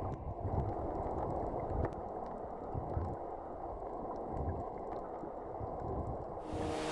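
Underwater water noise picked up by a submerged camera: a steady, muffled wash with low rumbling and a few faint clicks.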